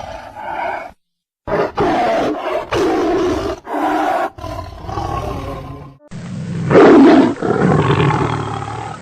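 A series of loud animal roars: several short ones in quick succession, then a longer, louder roar about six seconds in.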